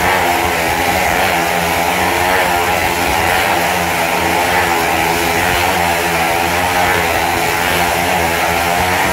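Two motorcycles circling the vertical wooden wall of a wall-of-death drum, their engines running hard at steady high revs in one continuous, loud drone that wavers slightly in pitch.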